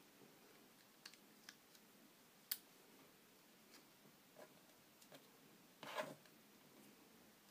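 Near silence, broken by a few faint clicks and rustles of rubber loom bands and the plastic loom being handled. One sharper click comes about two and a half seconds in, and a short rustle comes about six seconds in.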